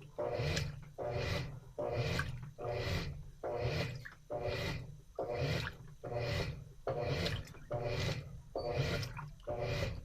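Washing machine in its wash cycle, sloshing water and laundry back and forth in an even rhythm of about four strokes every three seconds.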